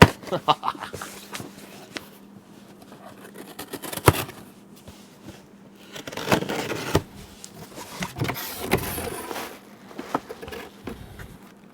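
Hands handling and opening packaging: scraping and rustling, with a few sharp knocks or clicks, one about four seconds in.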